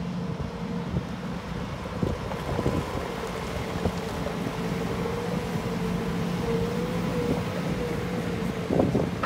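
Manitou MLT741-140 V+ telehandler's diesel engine running as the machine drives across the yard, a steady hum with a higher steady whine over it.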